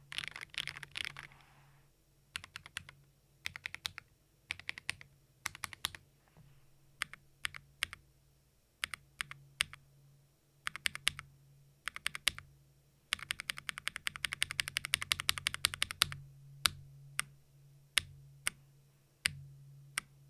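Keydous NJ68 Max mechanical keyboard, with Akko CS Ocean Blue switches on a brass plate, being typed on in irregular bursts of keystrokes. The sound is clacky and bright. About two-thirds of the way through comes a fast unbroken run of typing, and then single keystrokes spaced apart.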